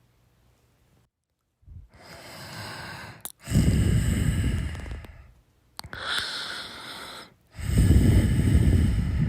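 A person snoring: after a second and a half of silence, two breath cycles, each a softer airy breath followed by a loud, rough, rattling snore lasting about two seconds.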